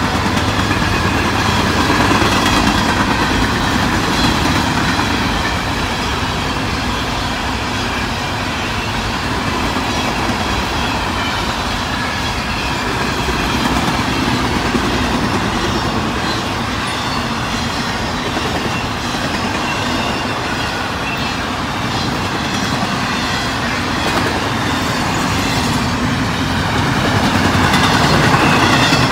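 Freight train boxcars rolling past at speed: a steady rumble of steel wheels on the rails, swelling a little near the end.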